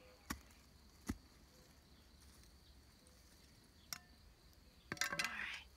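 Short-handled garden mattock striking soil: a few spaced, soft knocks, then a quick cluster of strikes and scraping near the end. A faint steady high-pitched tone sits underneath.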